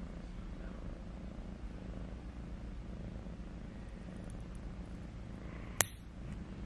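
Cat purring steadily while its claws are trimmed, with one sharp snap of nail clippers cutting a claw near the end.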